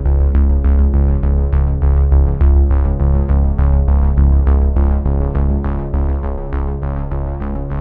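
Background music with a steady beat over a heavy bass line.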